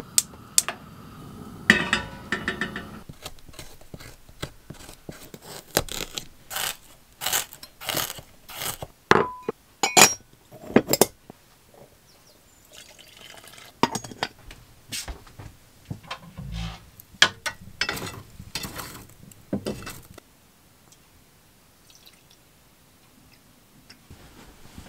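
Tea being made by hand in a small kitchen: a run of sharp clinks and knocks from a ceramic teapot, its lid and a china cup. It goes quieter for the last few seconds, as tea is poured from the teapot into the cup.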